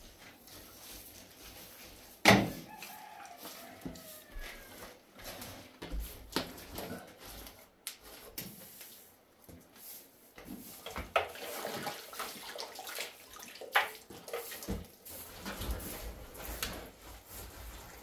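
Irregular wet slaps, scrapes and knocks of gloved hands working wet mud plaster onto a wall, with a sharp knock about two seconds in.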